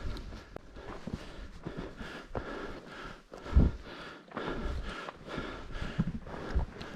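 A hiker breathing hard, with uneven footsteps and low thumps.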